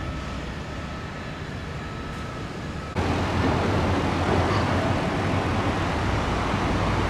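Steady road traffic noise with a low hum, growing abruptly louder about three seconds in.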